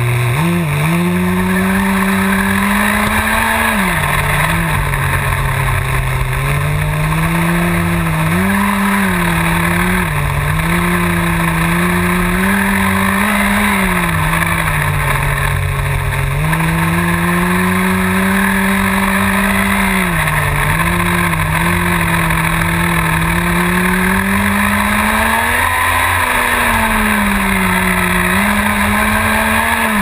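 Remote-control car's motor running, heard from a camera mounted on the car. Its pitch climbs and falls again and again as the throttle is worked, with several quick blips in between.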